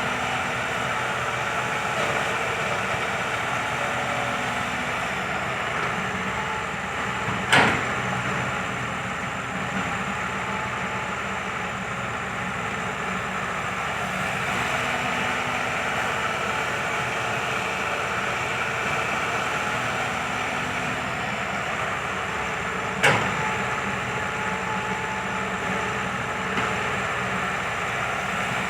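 Excavator's diesel engine running steadily at work, with two sharp knocks about fifteen seconds apart.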